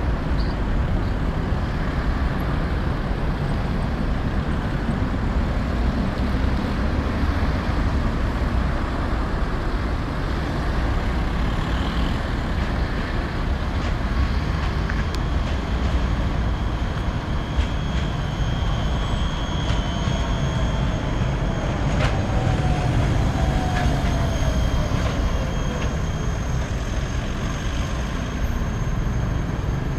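Trams on street track running through a junction, over a steady rumble of traffic. In the second half a Škoda 14T low-floor tram draws near and passes, with thin high whines from its electric drive and a whine that falls in pitch for several seconds.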